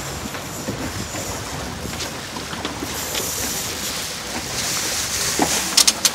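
Steady rush of water and wind around a small inflatable boat under way on open water, with a few sharp slaps near the end.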